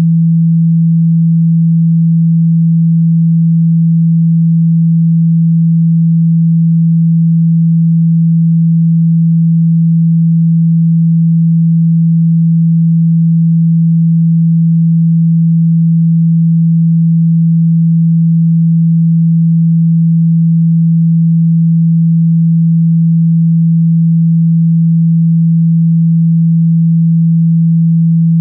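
A loud, steady, low pure-tone hum that holds one pitch without change: a generated sine-wave tone played through a phone speaker to vibrate trapped water out of the grille.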